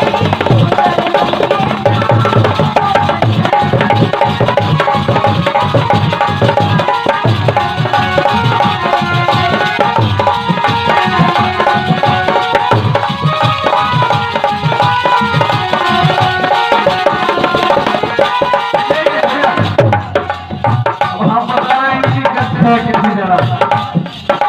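Instrumental interlude of Indian folk music with a steady hand-drum beat under a melody. About twenty seconds in, the upper sounds drop away and the drum strokes stand out on their own.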